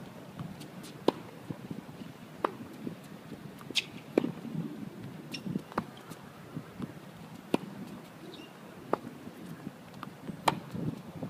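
Tennis rally on an outdoor hard court: sharp pops of racket strikes and ball bounces about every second and a half, some louder than others.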